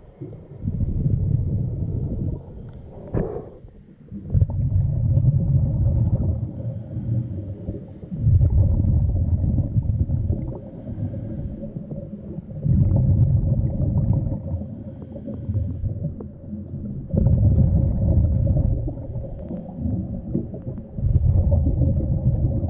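A diver's breathing heard underwater: low rumbling surges of bubbling breath, each about two seconds long, coming roughly every four seconds, with a faint steady hum underneath and a single knock about three seconds in.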